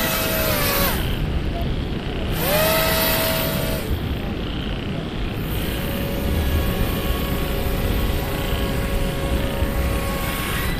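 Four-motor radio-controlled air-propelled boat, its motors and air propellers whining in bursts. The pitch rises, holds and drops off twice in the first four seconds, then a fainter steady whine runs from about six seconds until shortly before the end.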